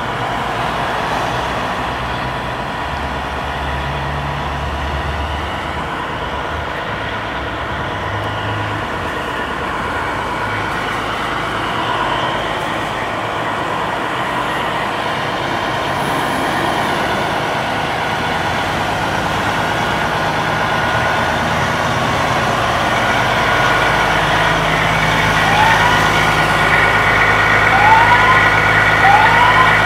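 Fire trucks' diesel engines running steadily. In the last few seconds, short rising siren whoops repeat every couple of seconds.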